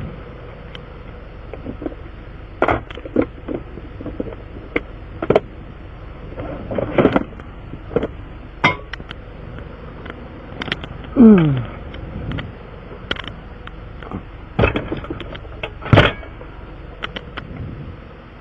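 Irregular sharp clicks and knocks, about fifteen of them, over a steady low background, with one short falling squeak-like glide about eleven seconds in.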